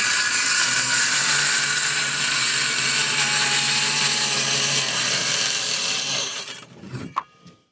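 Cordless power saw running through a cut on a nearly flat battery, its motor pitch slowly sagging as it labours, then stopping and winding down about six seconds in.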